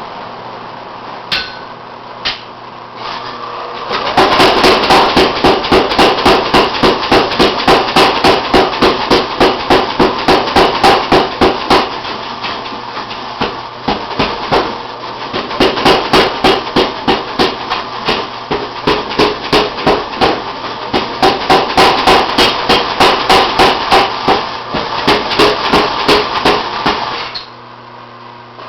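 Blacksmith's hammer striking red-hot iron on an anvil, forge-welding the eye of a wrought-iron strap hinge. After a couple of single knocks, rapid even blows begin about four seconds in at about three to four a second, ease off briefly near the middle, then resume until near the end.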